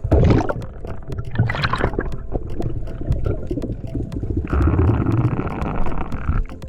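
Gurgling, bubbling water: two loud rushes near the start, then a steady hiss for about two seconds that cuts off near the end, over a constant crackle of faint clicks.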